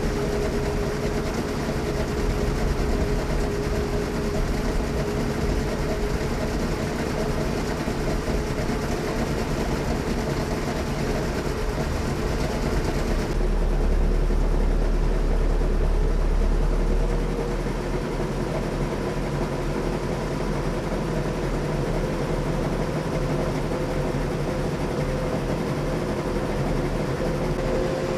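Tour boat's motor running steadily with an even drone. About halfway through, a heavier low rumble comes in for a few seconds before the drone settles again.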